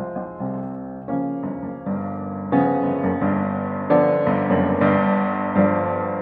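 Piano music: chords struck one after another, each fading before the next, louder from about two and a half seconds in.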